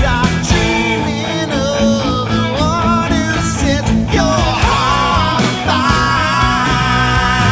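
Rock song playing: a bending, wavering melodic lead over steady bass and drums.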